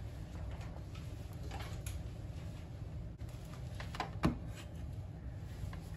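Light handling clicks over a steady low hum, with one sharp knock about four seconds in as a handheld multimeter is set down on a wooden desk.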